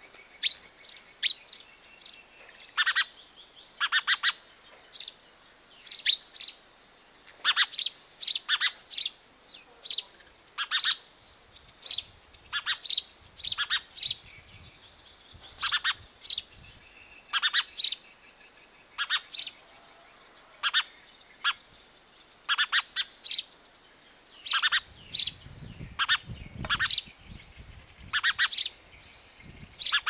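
House sparrow chirping: short, sharp chirps, often in quick runs of two to four, about once a second. A low rumble joins in the last few seconds.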